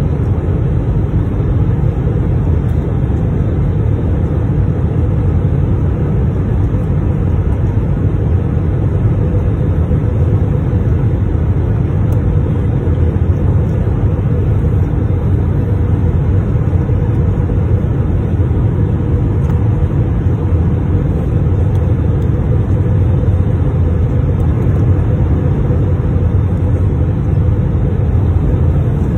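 Steady low rumble of a passenger aircraft, unchanging throughout.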